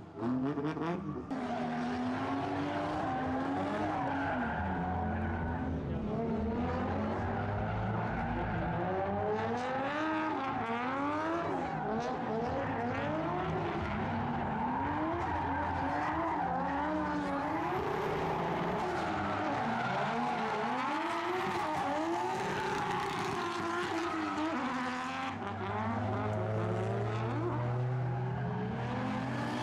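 Drift car engine revving up and down over and over through a drift run, with tyres skidding.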